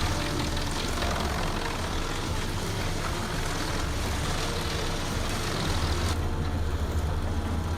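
Heavy wood-processing machinery running steadily: a deep engine hum under the noise of wood being worked, which eases about six seconds in.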